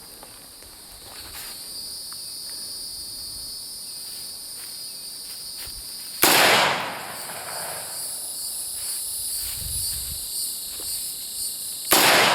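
Two rifle shots about six seconds apart, each a sharp crack with a short ringing tail, over a steady high chirring of insects. Neither sets off the exploding target; the last shot goes a hair high.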